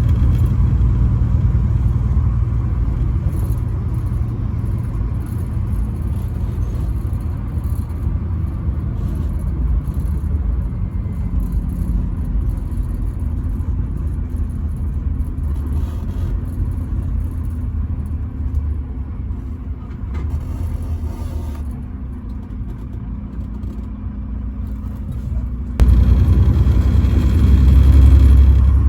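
Steady low rumble of a truck driving on the highway, engine and road noise, with no horn. The rumble steps up abruptly near the end.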